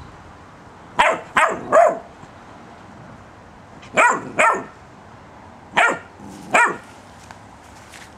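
Puppy barking at a squeaky toy ball, seven short barks in three groups: three in quick succession about a second in, two just after four seconds, and two more around six seconds.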